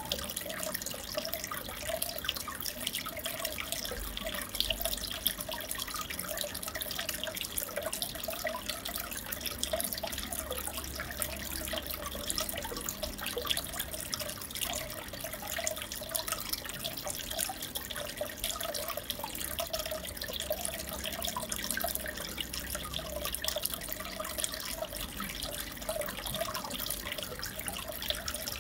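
Aquarium water trickling and splashing steadily, with many small drip-like splashes over it.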